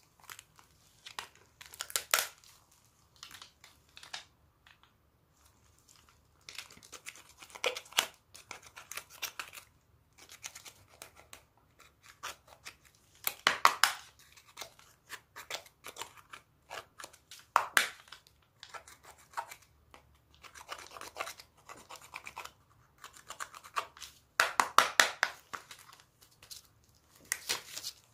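Slime mixed with eyeshadow being worked by hand, giving irregular clusters of crackling, popping clicks with short quiet gaps between them.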